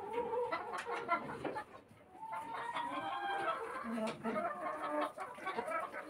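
A flock of domestic chickens clucking, their short calls overlapping, with a brief lull about two seconds in.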